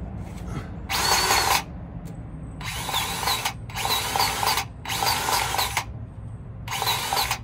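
Battery-powered grease gun motor running in five short bursts of under a second each, pumping grease into a chassis grease fitting.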